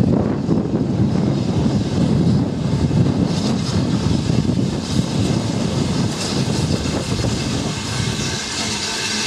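BR Standard Class 9F steam locomotive no. 92212 approaching slowly with its train of coaches: a steady low rumble.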